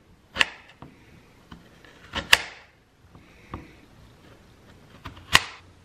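Paring knife slicing through strawberries and knocking on a plastic cutting board: a few sharp taps one to two seconds apart.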